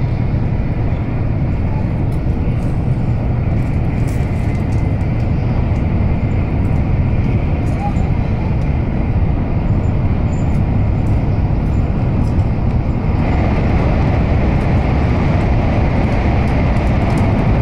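Steady running noise inside the cabin of an N700-series Shinkansen at speed: a deep rumble with a hiss of air and wheels. About thirteen seconds in it grows louder and brighter as the train enters a tunnel.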